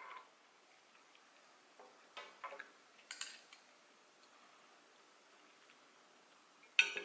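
Metal chopsticks clicking and tapping against a plate and a small sauce dish: a few light taps about two to three seconds in, then a louder burst of clicks near the end.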